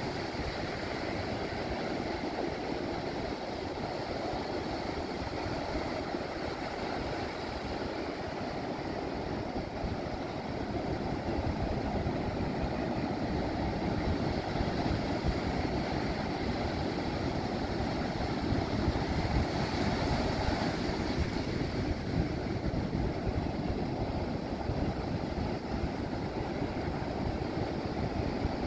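Ocean surf breaking and washing up a sandy beach: a steady rushing noise that grows a little louder about a third of the way in.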